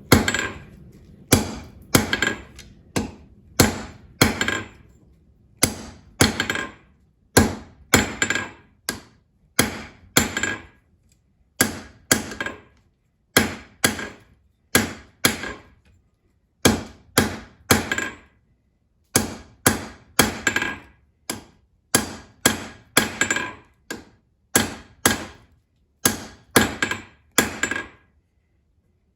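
Hand hammer striking hot coil-spring steel on an anvil, a steady run of blows about two a second, each with a short ring. The bar is being forged four-sided, then eight-sided. The hammering pauses briefly a few times.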